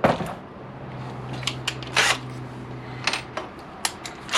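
Several short clicks and knocks, one near the start and others about one and a half, two, three and four seconds in, over a low steady hum that stops about three and a half seconds in.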